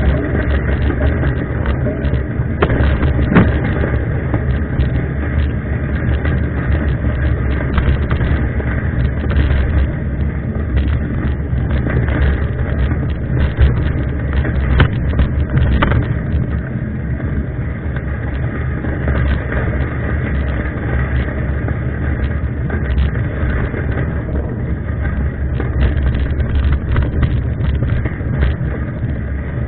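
Riding noise from a mountain bike: steady rumbling wind on the microphone with frequent small clicks and rattles.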